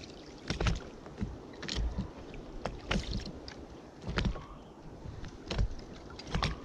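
Small waves lapping and slapping against an inflatable boat's hull, heard as irregular sharp knocks and clicks over a low steady wash.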